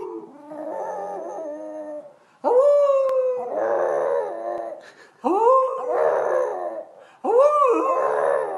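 Small black flat-faced dog howling: a softer call at first, then three loud drawn-out howls starting about two and a half, five and seven seconds in, each rising then falling in pitch and trailing off into a wavering, rough tail.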